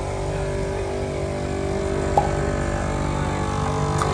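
A motor running steadily with an even drone, and a single sharp click about two seconds in.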